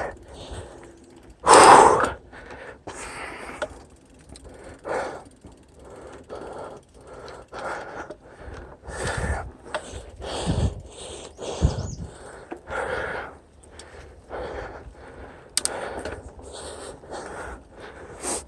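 A mountain biker breathing hard, with loud puffing breaths every second or two, the loudest about two seconds in.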